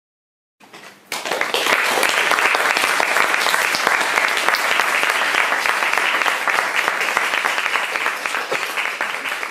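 Audience applauding. It starts suddenly about a second in, after silence, as many dense, even claps, and holds steady.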